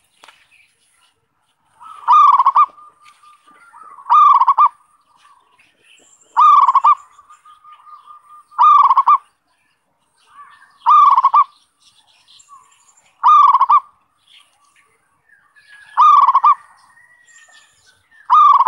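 Zebra dove (perkutut) cooing: a short call of under a second repeated about every two seconds, eight times. This is a lure-call recording used to draw wild zebra doves in.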